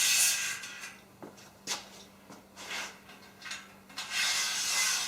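Nuts and bolts scraping and clicking as they are slid into the channel of an aluminum extrusion. There is a longer scrape at the start and again near the end, with a few short clicks between.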